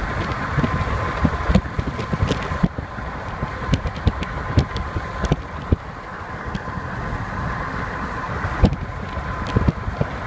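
Steady road and wind noise inside a car, with irregular low knocks and a faint steady whine.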